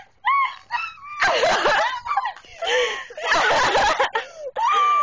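High-pitched wordless human vocalising: a string of wails and shrieks with the pitch sliding up and down. The loudest outbursts come about a second in and again around three to four seconds in.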